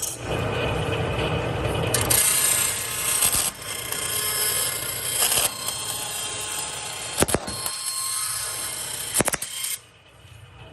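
Grob 4V18 vertical bandsaw blade cutting through a plate, a steady rasping cutting noise with a couple of sharp knocks late on. Near the end the cutting noise stops abruptly, leaving only a quieter running sound.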